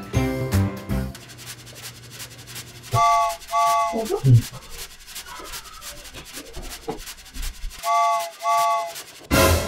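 Rustling and scuffling as a struggling cat is held on the floor and dosed with medicine, with a short two-note chime played twice, about three and eight seconds in. Music fades out in the first second and comes back just before the end.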